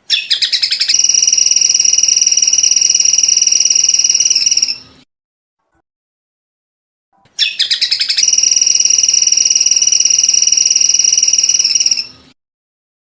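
Recorded song of a kecial kombok (cucak kombok), played as bird song-training material: two phrases of about five seconds each, separated by dead silence. Each phrase opens with a quick stutter of notes and runs into a long, steady, high trill.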